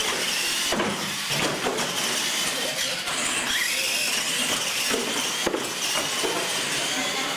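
Radio-controlled monster trucks racing side by side on a concrete floor: electric motors whining up and down in pitch with the throttle, over tyre and drivetrain noise, with a few knocks.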